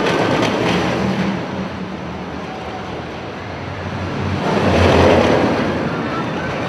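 A loud rushing noise, like wind or surf, that eases off after the first second and swells up again about five seconds in.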